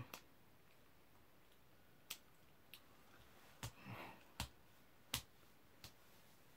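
Quiet, sparse sharp clicks and smacks of lips and tongue from chewing spicy food, about seven spread across the stretch, with a faint breath about four seconds in.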